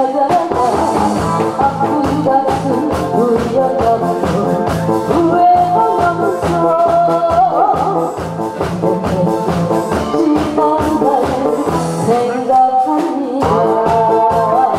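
A woman singing into a handheld microphone over backing music with a steady beat.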